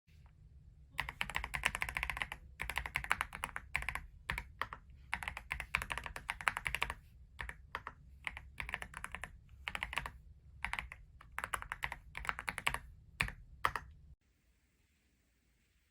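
Typing on a YUNZII X71 mechanical keyboard, a 68% wireless board with a gasket mount: fast runs of key clicks in bursts with short pauses, stopping abruptly near the end.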